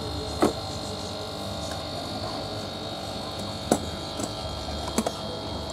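Steady electric hum and buzz of aquarium equipment such as an air pump or filter motor, with a few sharp clicks or taps breaking through, the loudest about half a second in and just before four seconds in.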